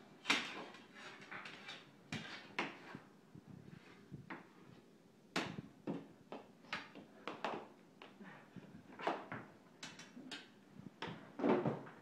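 Irregular sharp clacks and knocks of floor-hockey sticks and ball striking each other and a tile floor, a few louder hits among them.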